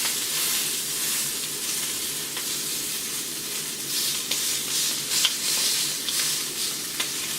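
Meat frying in a pan: a steady sizzle with a few sharp pops scattered through it.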